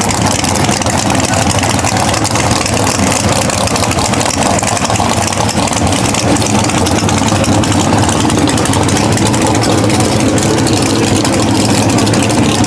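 Drag-race car engines idling loudly and steadily, with no launch or revving.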